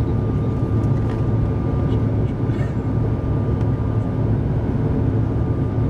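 Cabin noise inside a Bombardier CRJ900 airliner climbing after takeoff: a steady low drone from its tail-mounted General Electric CF34 turbofan engines and the airflow, with a thin steady whine above it.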